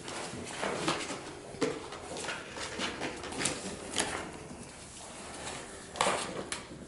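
American Eskimo puppies play-fighting on a cardboard box: short little growls and whines mixed with irregular scratching and knocking of paws and teeth on the cardboard.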